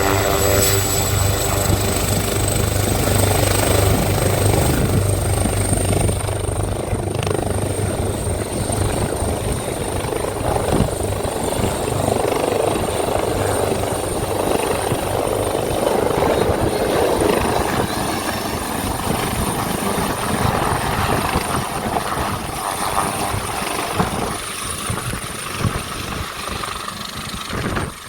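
AgustaWestland AW139 helicopter heard from inside the cabin: a steady heavy drone of rotor and twin turboshaft engines with a thin high turbine whine that rises slightly in the first few seconds. The low rotor throb eases after about six seconds.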